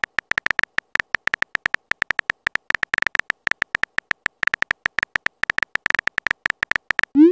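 Phone keyboard typing sound effect: a rapid, irregular run of short clicks, several a second, as letters are entered. A short rising swoop starts near the end.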